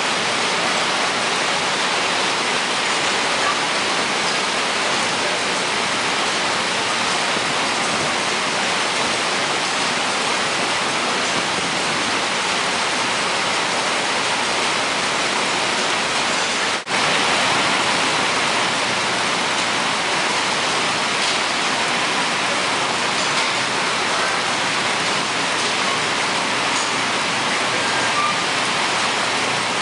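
Steady, dense hissing noise with no clear rhythm or tone, broken once by a momentary dropout about seventeen seconds in.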